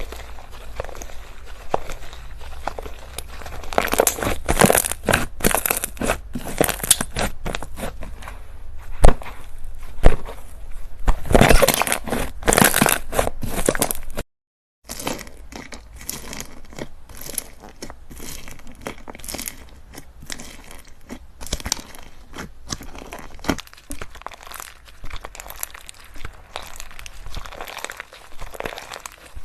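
Slime being squeezed and pressed by hand, giving dense crackling and popping with a couple of sharp, louder snaps. It drops out for a moment about halfway through, then resumes as quieter, finer crackling.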